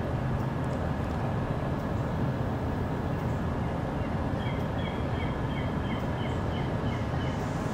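Steady low rumble of distant engine noise. About halfway through, a bird chirps a quick run of short high notes, about two or three a second.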